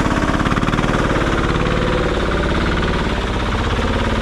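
Diesel engine of a karakat, a homemade all-terrain vehicle, running hard under load with a fast, even beat, its revs rising and falling.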